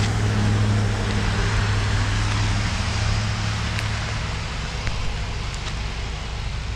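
A car engine running close by, a steady low hum that eases off about a second and a half in, over a steady hiss of rain.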